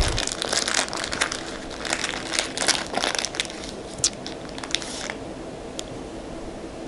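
Small plastic bag crinkling and rustling as it is handled and small metal rings are taken out of it. The crinkling dies away about five seconds in, with one faint click after.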